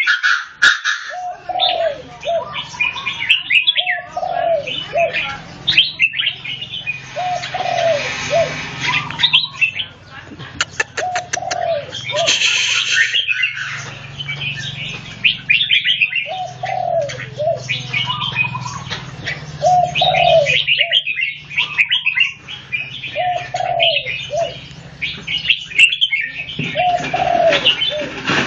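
Red-whiskered bulbuls singing short, bright chirping phrases over and over, with lower falling notes recurring every couple of seconds. A couple of brief noisy bursts come in around the middle.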